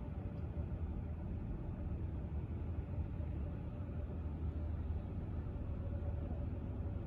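Steady low rumble of harbour ambience, with a faint steady hum running through it.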